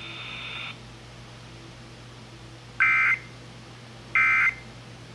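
Emergency Alert System end-of-message data bursts over the radio: two short buzzing digital screeches just over a second apart, starting about three seconds in, which signal that the flash flood warning alert is over.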